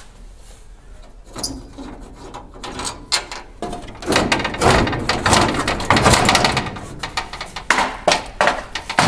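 A 1969-72 Chevrolet pickup grille assembly being worked loose from its brackets and lifted off the front of the truck, with irregular knocks, clicks and clattering of the grille against the body. The clattering is densest in the middle.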